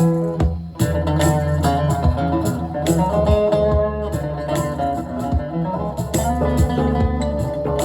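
Live band playing an instrumental passage, a guitar carrying the melody over bass and drum hits.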